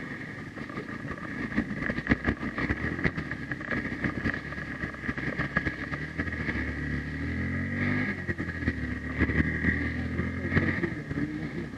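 Hero XPulse 200 4V's single-cylinder engine running as the motorcycle rides through a shallow river crossing, with water splashing and knocks from the rough riverbed. The engine pitch rises about two thirds of the way through.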